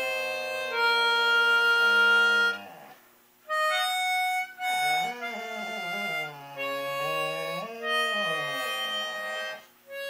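Harmonica playing held chords while a boxer dog howls along, its howl wavering up and down in pitch. It comes in several phrases with short breaks between them.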